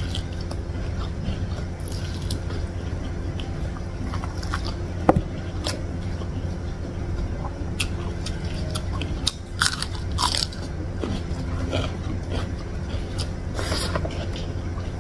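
Close-miked eating of fish and rice by hand: wet chewing and mouth sounds, with scattered crisp clicks and a few louder crunches, the sharpest about five seconds in. A steady low hum runs underneath.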